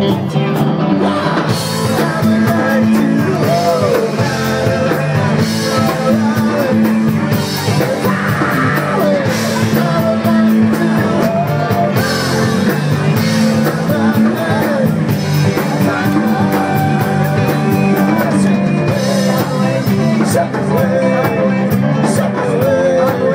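Live rock band playing amplified, with electric guitar, drums and a singer.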